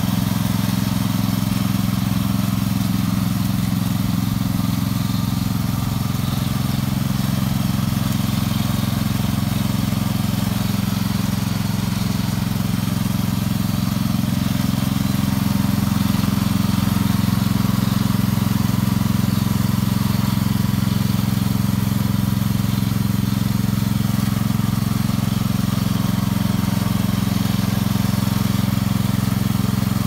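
Wheel Horse garden tractor's engine running steadily under load as it pulls a single-furrow plough through garden soil.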